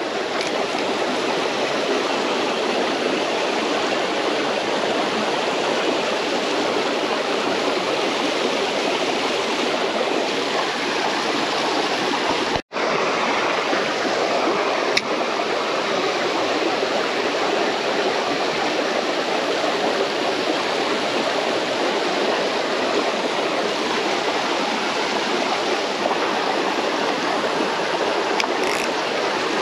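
Water running through a small ditch, a loud, steady, even rush. It cuts out for an instant about twelve seconds in.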